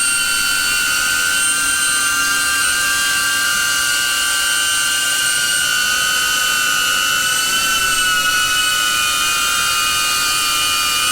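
DJI Avata FPV drone running on its stock five-blade propellers: a loud, steady propeller whine made of several high tones over a hiss, holding nearly constant pitch.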